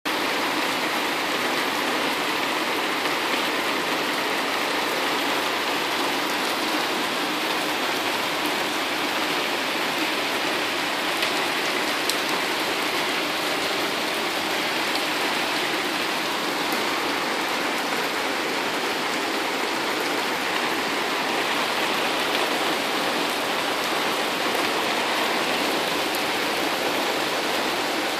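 Heavy tropical downpour: a steady, even hiss of rain pouring onto lawns, pavement and a parked car, with no let-up.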